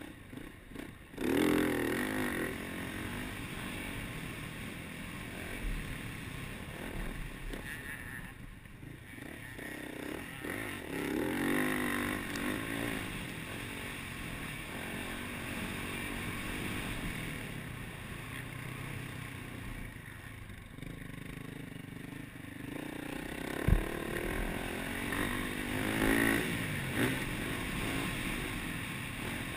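Yamaha YZ450F single-cylinder four-stroke dirt bike engine, heard from on board, revving up and falling back again and again as the bike is ridden hard, with a steady rush of wind and dirt noise underneath. A single sharp knock comes a few seconds before the end.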